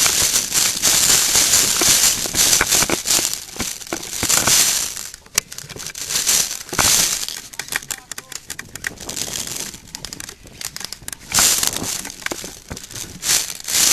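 Irregular crunching footsteps and rattling gear, with clothing rubbing against a body-worn microphone, as a player runs.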